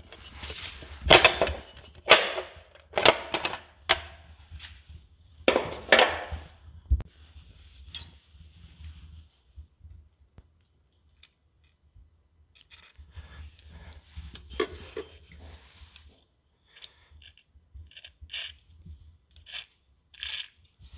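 Motorcycle side cover being worked loose and pulled off, with several loud knocks and clatters. Later come short hissing bursts of an aerosol penetrating lubricant sprayed onto the exhaust bolts to loosen them.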